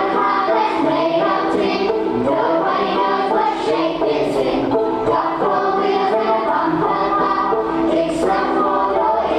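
A class of young children singing a song together over instrumental accompaniment.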